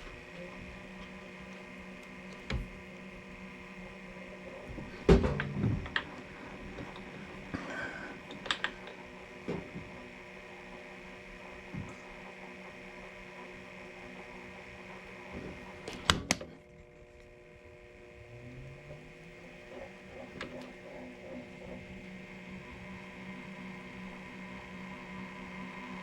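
Milling machine spindle running with a steady hum, punctuated by sharp metal clanks, while threaded holes are being power-tapped. About sixteen seconds in the spindle stops, then spins back up with a rising whine.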